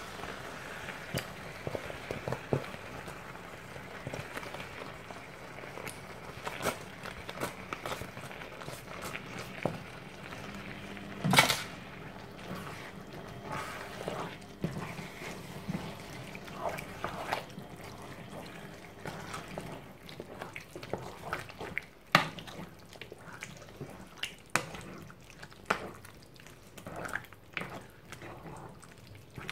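Thick tomato sauce with mince and vegetables being poured into and stirred around a large non-stick pan with a silicone spatula: wet squelching and slopping with scattered irregular knocks of the spatula against the pan. One louder short clatter comes about eleven seconds in.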